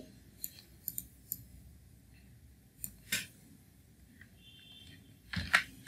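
A handful of faint, scattered clicks from a computer mouse and keyboard as lines of code are selected and commented out, with a slightly louder click about three seconds in and a brief soft sound near the end.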